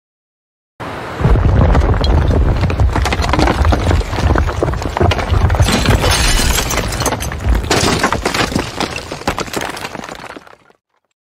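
Building-collapse sound: a deep rumble with crashing debris and breaking glass. It starts suddenly about a second in, surges again near the end, then dies away.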